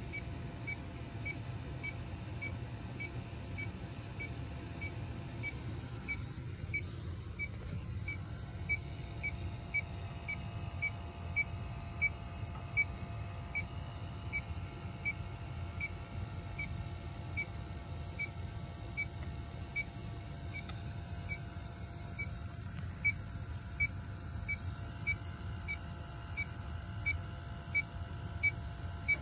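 Inficon D-Tec 3 electronic refrigerant leak detector, freshly reset and in manual mode, beeping steadily at about two short high beeps a second: its search rate with the probe in a frozen evaporator coil. A low steady hum runs underneath.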